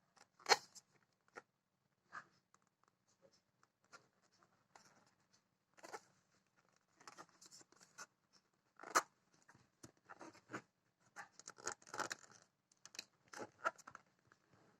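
Packaging being handled and opened during an unboxing: irregular rustles, scrapes and taps, with sharper sounds about half a second in and about nine seconds in.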